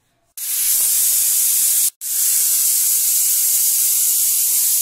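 A stovetop aluminium pressure cooker's weighted whistle valve venting steam in a loud, steady hiss that starts a moment in and breaks off for an instant about two seconds in. The whistle means the cooker is at full pressure; each one is counted to time the cooking of the chickpeas.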